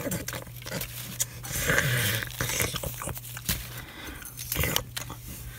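Handling noise: paper cutouts and plush toys being moved by hand on carpet, giving irregular rustles, scrapes and small taps over a steady low hum.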